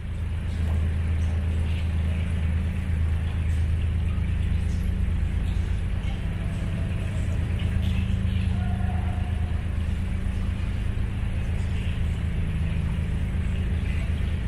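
Narrowboat's diesel engine running steadily under way, a low rumble with a fast even pulse, heard inside a brick-lined canal tunnel.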